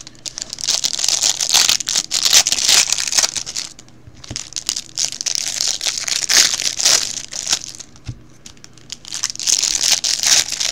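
Clear plastic wrapping of a football trading card box crinkling and tearing as it is pulled open by hand, in three bouts with short pauses between them and a couple of light knocks.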